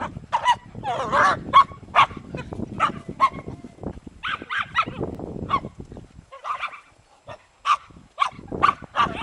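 Dogs barking in play, many short high-pitched yaps in quick succession, with a lower rough scuffling noise under the first few seconds.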